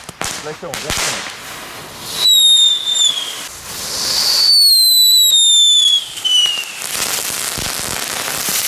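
Small ground fireworks going off: a few sharp crackles, then two long whistles falling slowly in pitch and a short third one, followed by a steady hiss of sparks.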